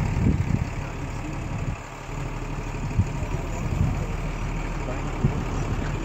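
Vehicle engine idling steadily, with a few short low thumps now and then.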